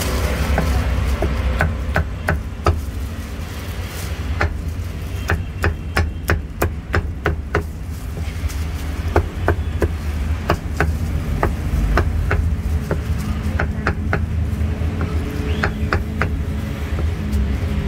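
A heavy cleaver chopping braised pork on a round chopping block: sharp knocks in quick, irregular runs, with short pauses while the pieces are pushed aside. A steady low hum runs underneath.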